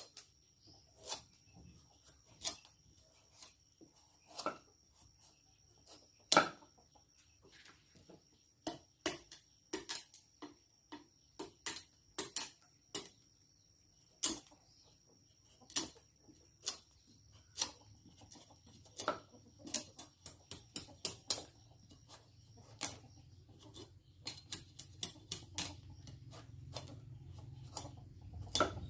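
A cleaver chopping and shaving the skin off a large squash, with sharp knocks of the blade on a wooden chopping block, irregular at about one a second and coming quicker near the end.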